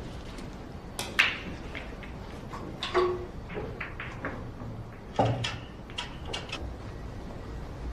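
A few scattered short knocks and clatters of hard objects being handled, the loudest about a second in and others spread over the following seconds.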